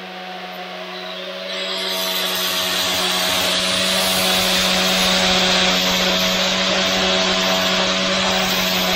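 Angle grinder with a blue disc running steadily while it works the edge of a stainless-steel spoon-lure blank held in a vise; the grinding hiss builds about a second and a half in as the disc bears on the metal, over the motor's steady hum.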